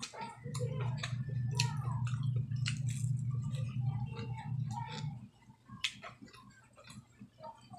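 Close-up eating sounds: chewing with scattered wet mouth clicks and smacks. A steady low hum starts about half a second in and stops about five seconds in, louder than the chewing.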